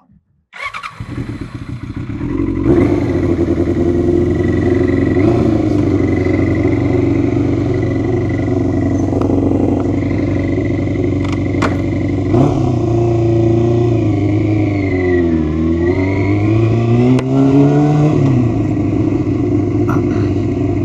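Yamaha R6 inline-four motorcycle engine starting from cold and running evenly on freshly fitted spark plugs, with no misfiring. Its note builds over the first couple of seconds, then holds steady; later it dips and climbs back as the throttle changes.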